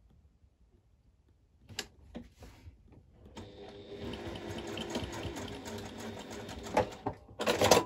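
Domestic electric sewing machine running steadily for about three and a half seconds, starting a few seconds in, as it top-stitches through a vinyl zipper tab. A brief louder clatter follows near the end.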